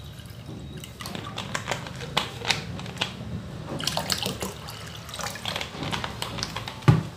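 Water poured from a plastic bottle splashing and gurgling into a glass bowl, followed by a single loud thump near the end.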